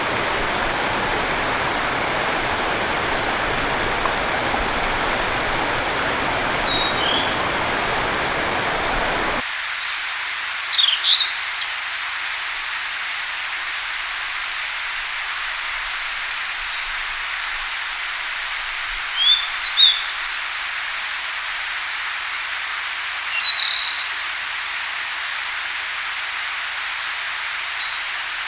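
Blue-and-white flycatcher singing: three clear, high whistled song phrases in the second half, with faint high chirps between them. For the first nine seconds a steady rush of running water covers the recording, then cuts off abruptly.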